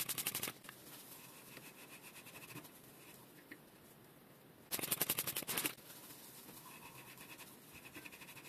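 Small brush scrubbing bicycle hub parts in quick back-and-forth strokes, about ten a second. One burst ends about half a second in and a second lasts about a second, some five seconds in, with faint handling noise between.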